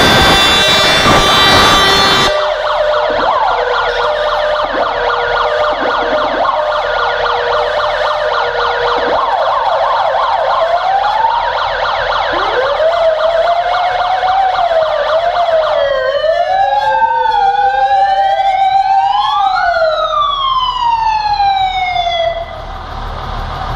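Fire engine siren being tested through its tones. It opens with a harsh, loud steady blast for about two seconds, switches to a fast warbling yelp, then from about halfway to slow rising and falling wails, and cuts off near the end.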